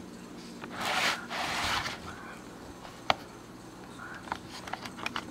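Handling noise: a rustle and scrape about one to two seconds in, then a sharp click about three seconds in and a few lighter clicks near the end.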